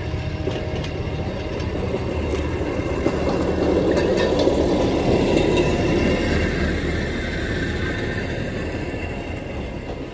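Rail speeder's engine and wheels running on the rails as it passes close by, getting louder to a peak about halfway through and then fading away.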